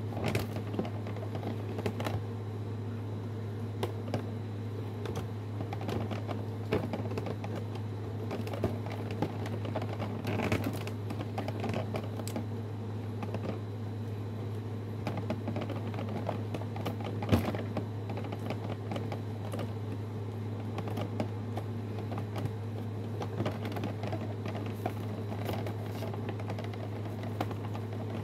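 Scattered light clicks and taps of hard plastic being handled and fiddled with, over a steady low hum.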